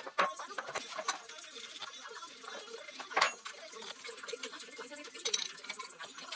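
Open-end spanner clinking against steel hydraulic fittings while a fitting is being tightened: a few scattered sharp metal clicks, the loudest about three seconds in.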